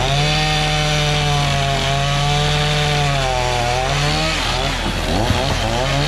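Gas chainsaw running at full throttle, cutting through a wooden slab cutoff. Its pitch sags about four seconds in, then wavers quickly up and down.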